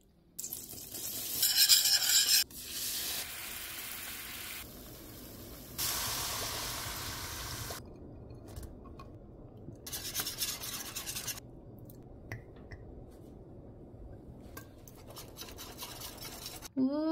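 A wire whisk stirs and scrapes through a beer cheese sauce in a stainless steel skillet on the stove, with a light sizzle. It comes in short clips that cut abruptly from one to the next.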